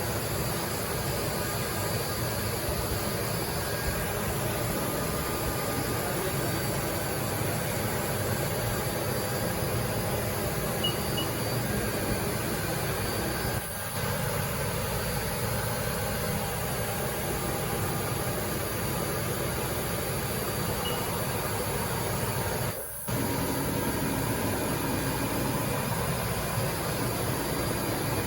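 Haas VF-5/40 vertical machining center running steadily: a continuous mechanical whir and hiss with faint steady tones. The sound dips out briefly twice.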